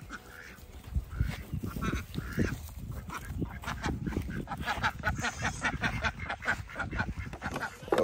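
Ducks quacking in quick runs, thickest over the second half, over a low rustling.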